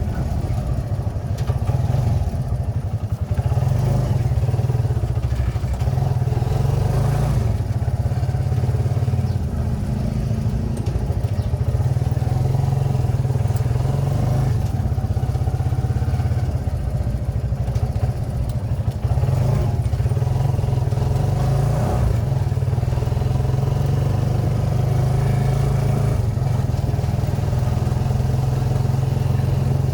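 Kawasaki Barako II 175 motorcycle's single-cylinder four-stroke engine running steadily, after a tune-up with new spark plug, oil and air filter.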